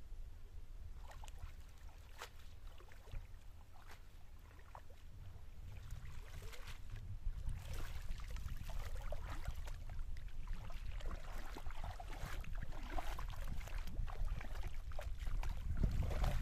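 Shallow water splashing and dripping as a wet cast net is hauled out and gathered by hand, with wading steps in the water; the splashing grows busier after about six seconds. Wind rumbles on the microphone underneath, rising toward the end.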